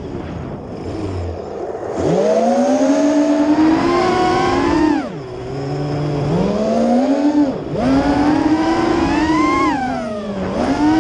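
Chameleon FPV quadcopter's motors and propellers whining, the pitch rising and falling with the throttle: held low at first, punched up about two seconds in, then dipping and climbing again about five, seven and a half, and ten and a half seconds in.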